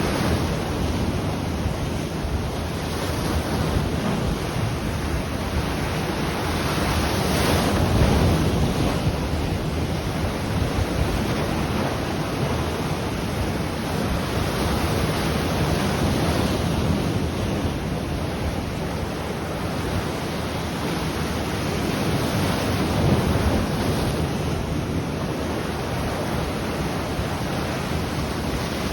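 Ocean waves breaking and washing on the shore, a steady surf that swells louder and eases off, with wind buffeting the microphone.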